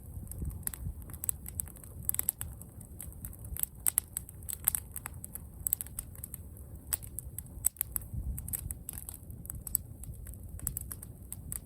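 Footsteps crunching over dry ground and brush, heard as many irregular crackles and clicks over a low rumble.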